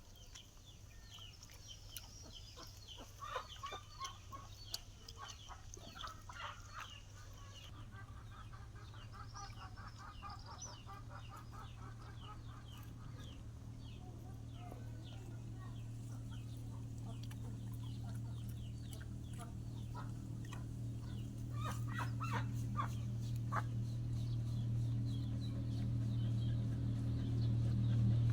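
Many short, high bird-like calls repeated over and over, thickest in the first few seconds and again near the end, over a steady low hum that grows gradually louder.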